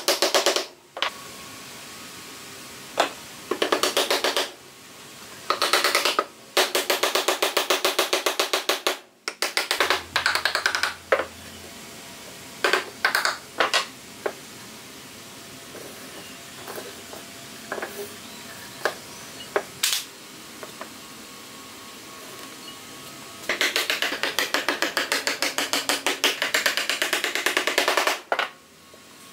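Hammer knocking wooden joints together: several quick runs of rapid taps on wood, a few scattered single knocks in the middle, and a longer run of rapid taps near the end.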